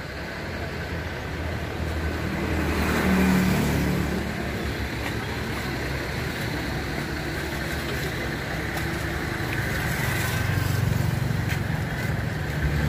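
Road traffic: vehicles passing with a steady engine hum, swelling louder about three seconds in and again around ten seconds in.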